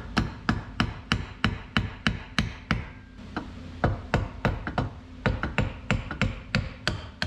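Hammer tapping the aluminium cold-side (compressor) housing of a Subaru VF30 turbo clamped in a vise, to knock it off the centre cartridge. Light, quick taps about three a second, with a brief pause about three seconds in.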